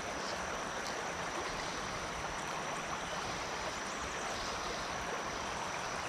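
A shallow river flowing in a steady, even wash of water noise, with a thin steady high tone above it.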